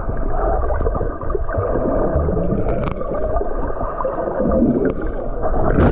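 Rough sea water churning and rushing, heard muffled and dull, with a few faint wavering tones through it.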